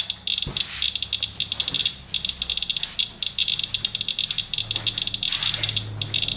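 Radalert Inspector Geiger counter chirping rapidly and irregularly, one short high beep per detected count, at a fast count rate from a rain-residue sample reading many times background radiation.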